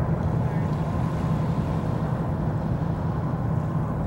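Steady low rumble with a faint steady whine above it, unchanging throughout.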